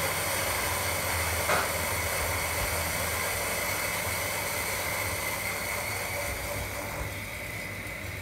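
Electric kettle heating water: a steady rushing hiss, with a single click about one and a half seconds in, and the rush easing a little near the end.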